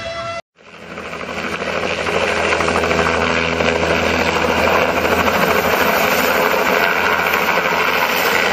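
Bell 206-series light turbine helicopter running close by as it lifts off: steady engine and rotor noise with a fine, rapid beat of the blades. It fades in about half a second in, after a brief silence.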